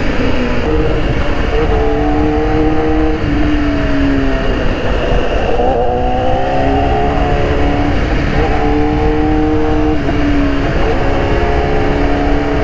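BMW S1000RR's inline-four engine running on the move, its note rising and falling several times with the throttle, under heavy wind rumble on the microphone.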